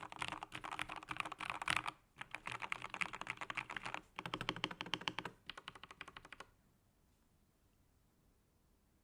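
Rapid typing on an Epomaker GK87S keyboard with lubed Gateron Milky Yellow linear switches, a steel plate and a foam-dampened case. The typing pauses briefly about two and four seconds in, then stops about two-thirds of the way through.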